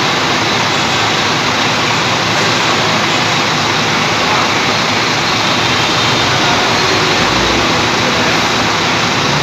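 Steady mechanical roar of a bus idling in a depot garage, with a faint high whine running under it.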